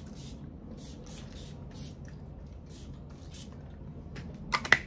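Fragrance spray bottle spritzed again and again: about six short hissing sprays. Two sharp clicks come near the end.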